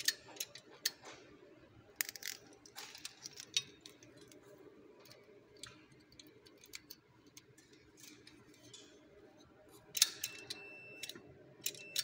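Irregular sharp clicks and taps of multimeter test probes against a sprinkler valve tamper switch's terminals and housing, the loudest about ten seconds in. A short faint steady beep follows, typical of the meter's continuity tester as the switch is checked.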